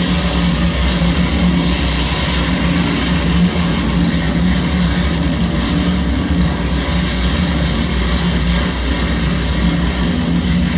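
Live electronic noise music from a table of electronic gear: a loud, dense, unbroken wall of noise over a steady drone low down.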